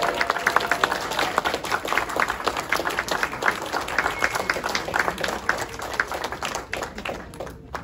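Audience applauding, with one pair of hands clapping close by; the applause thins out and dies away near the end.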